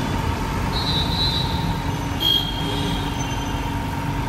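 Steady traffic noise of a busy street, a continuous low rumble with a faint steady hum, and one short louder sound a little past two seconds in.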